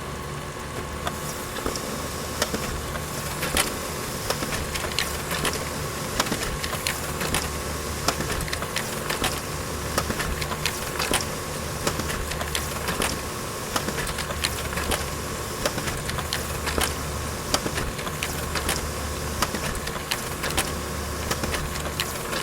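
Printer running through a print job, recorded up close: a steady motor hum with a constant whirr, overlaid with frequent sharp clicks and ticks of the paper-feed and print-head mechanism.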